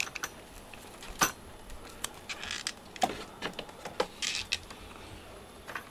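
Scattered light knocks, clicks and rustles as cables and a plastic cat carrier with a wire grille door are handled.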